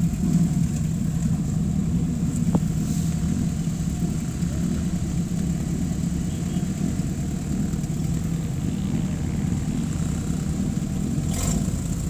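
Several UAZ off-road vehicles, UAZ-469s and UAZ Patriots, idling together, a steady low engine rumble.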